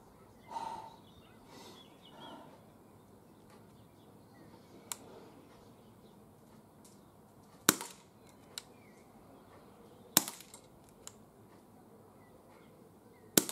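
Smith & Wesson M&P R8 CO2 air revolver firing pellets double action: three sharp shots, about two and a half and then three seconds apart, with fainter clicks in between.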